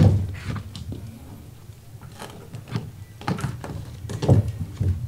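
A wooden door being handled indoors: scattered knocks and thumps, the loudest right at the start, with a few short clicks later on.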